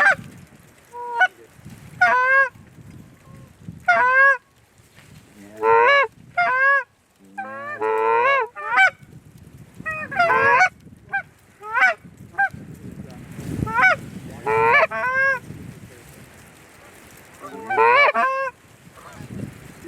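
Canada goose honks and clucks in quick runs of short calls with brief gaps. The densest burst comes about eight seconds in, and there is a quieter lull a few seconds before the end.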